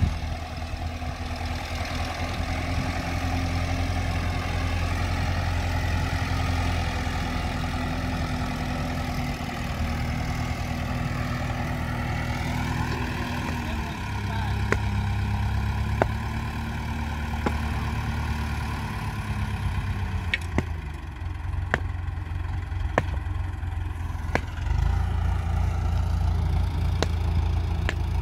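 Diesel farm tractor engine running steadily, its note shifting about twelve seconds in and again around twenty seconds as the revs change, with a few scattered sharp clicks or clanks.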